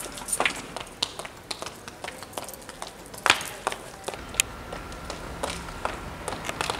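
Footsteps on a paved street: sharp, clicking steps at an uneven pace, roughly one or two a second, the loudest a little after three seconds in. A faint low hum and a thin steady tone come in about four seconds in.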